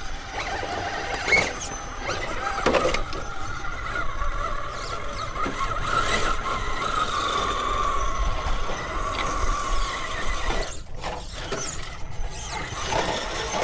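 1/10-scale RC rock crawler's electric motor and geared drivetrain whining as it creeps along under load, a high wavering whine with a few sharp knocks and clicks.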